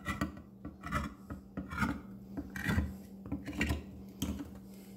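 Handheld manual can opener cutting around the lid of a tin can of diced tomatoes: a series of short ratcheting rasps, about two a second, as the key is turned, stopping about four seconds in.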